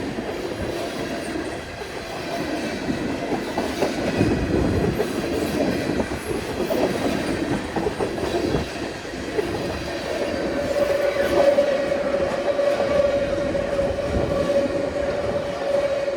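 Freight cars of a CN train rolling past, with a steady rumble and wheels clattering over the rail joints. About ten seconds in, a steady squeal sets in and holds.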